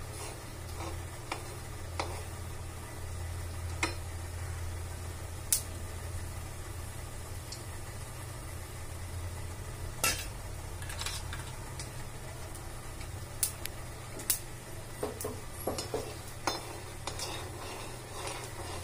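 Mustard seeds spluttering in hot oil in a kadai, with urad dal frying alongside. Sharp scattered pops come every second or few, bunching together near the end, over a steady low hum.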